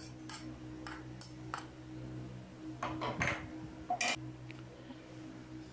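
A metal spoon scraping and tapping against a ceramic bowl and plate while chopped spring onions are spooned out, making a few scattered light clinks, over a steady low hum.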